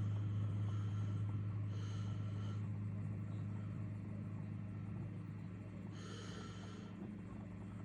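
Oasis Mini kinetic sand table running with a steady low hum, broken twice, about two and six seconds in, by a brief higher-pitched crackling burst: the cracking noise the owner finds horrible.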